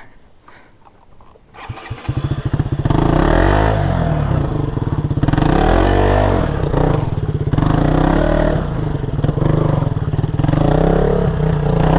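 Motorcycle engine that comes in loud about two seconds in and keeps running, revving up and down several times.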